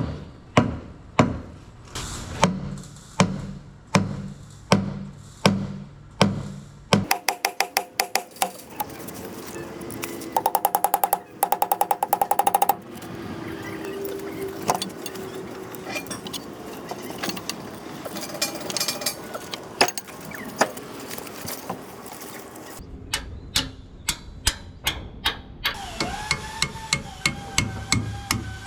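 Background music with a steady percussive beat, then rapid rattling runs and a sliding melodic line near the end.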